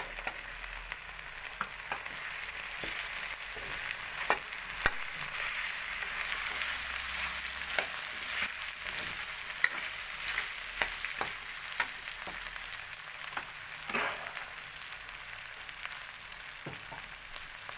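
Pork and freshly added potato cubes sizzling in oil in a metal wok, stirred with a metal spatula that clicks and scrapes against the pan every so often.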